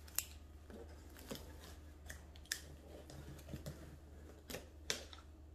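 A small blade slitting packing tape along the top seam of a cardboard box, heard as a faint string of short, sharp scratches and clicks.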